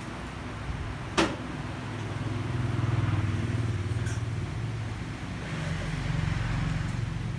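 Low rumble of passing motor traffic, swelling twice, with one sharp click about a second in.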